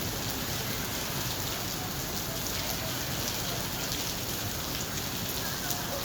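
Steady rain falling and pattering on street surfaces, with scattered drip ticks; a heavy downpour just beginning to ease.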